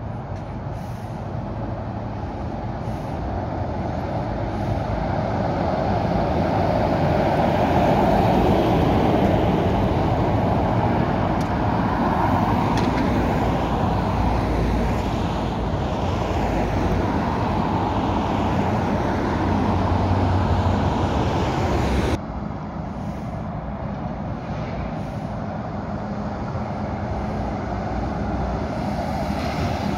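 Articulated lorry hauling a shipping container passes by on the road: engine and tyre noise grow louder as it approaches, then stay up as it goes by with cars behind it. About two-thirds of the way through the sound drops suddenly to quieter road traffic, which slowly grows again as another lorry approaches.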